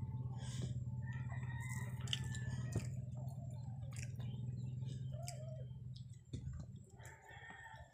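Eating sounds: chewing with scattered small mouth clicks, over a steady low hum that drops away about six seconds in.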